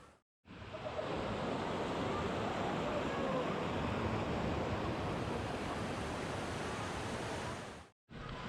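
Steady rush of falling water from a waterfall, with faint voices in the background. It breaks off to silence for a moment just after the start and again near the end, at cuts in the footage.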